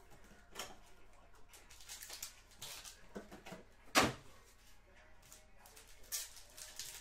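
Trading-card packaging being handled: a cardboard box and a foil-wrapped pack rustling and crinkling, with one loud thump about four seconds in and a burst of foil crackling near the end.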